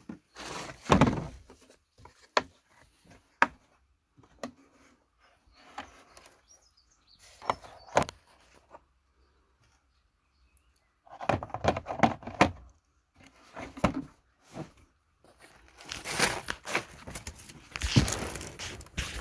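Handling noise of things being moved around at close range: scattered sharp clicks and knocks, with two longer spells of rustling and knocking, about eleven seconds in and again near the end.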